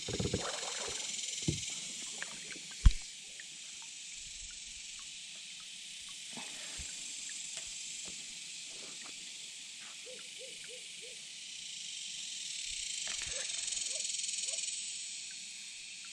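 Steady, high-pitched chorus of insects buzzing in summer-afternoon heat, swelling louder for a few seconds near the end. A single sharp knock about three seconds in is the loudest sound, with a few faint ticks around it.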